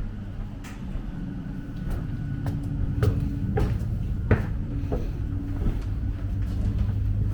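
A moving passenger train's steady running rumble and hum, heard from inside a carriage, with scattered knocks and clicks; the sharpest knock comes about four seconds in.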